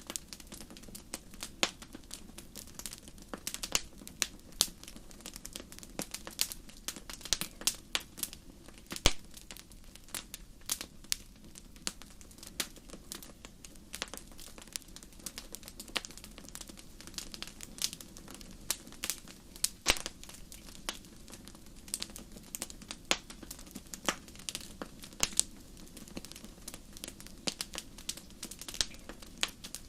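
Wood campfire crackling: irregular sharp pops and snaps, some louder than others, over a faint steady low rumble.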